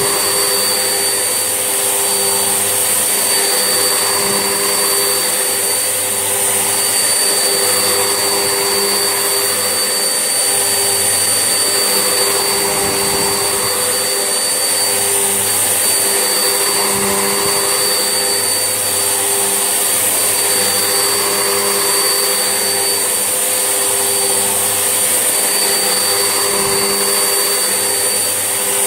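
Vax Essentials vacuum cleaner running steadily while hoovering: a constant motor hum with a thin high whine, swelling and easing slightly every few seconds as it is pushed back and forth.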